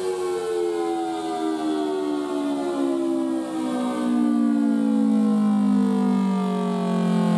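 Federal Sign & Signal Thunderbolt 1000T rotating-horn siren sounding its Attack signal, its pitch winding steadily down through one fall of the wail. It grows louder about halfway through as the turning horn swings round to face the listener.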